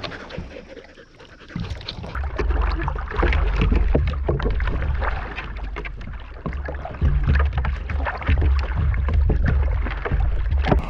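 Water splashing and lapping against a plastic kayak, with irregular knocks and splashes, under a strong low wind rumble on the camera microphone that sets in about two seconds in.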